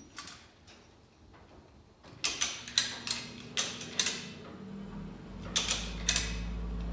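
Sharp metallic clicks and creaks, a few a second from about two seconds in, from an engine hoist's chain and ratchet-strap rigging as a small-block Chevy 350 and transmission are worked up out of the engine bay. A steady low hum joins about two-thirds of the way through.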